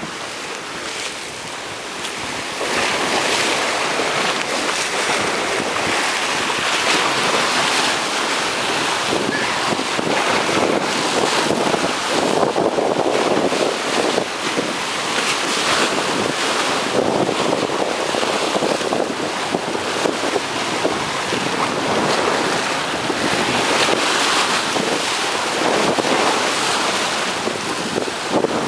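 High-tide sea waves breaking and splashing against rocks and a stone seawall in continuous surging surf, a little louder from about two seconds in, with wind buffeting the microphone.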